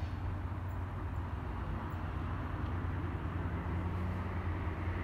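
Steady low rumble of a train still some way off, approaching along the line.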